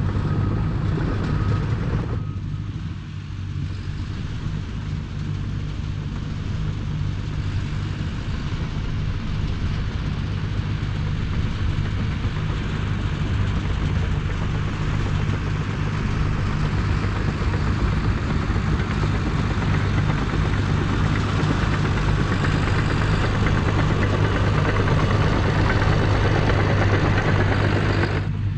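CAT D5 bulldozer's diesel engine running steadily with a heavy low drone. It drops in loudness about two seconds in, then slowly builds back up.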